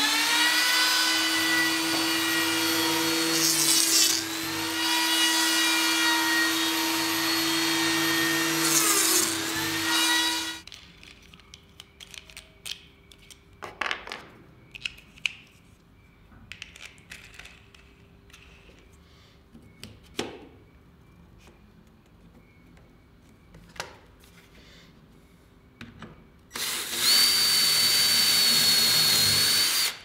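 Lamello Zeta P2 biscuit joiner running at full speed, its pitch dipping twice as the blade plunges into the edge of a veneered chipboard panel to cut Clamex P-10 slots. The motor stops about ten seconds in. Scattered knocks and clicks of parts being handled follow, and near the end a drill runs for about three seconds, boring through the Clamex drill jig.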